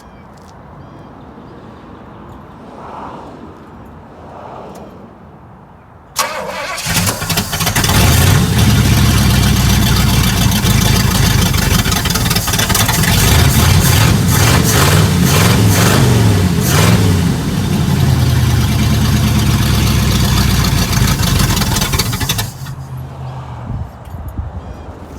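1976 Pontiac Firebird Formula's V8 catching about six seconds in and running loud and a little rough, its revs rising and falling, then dropping to a quieter idle near the end. It is cold with the choke not set right, and it runs loud because the exhaust has been cut off ahead of the missing catalytic converter.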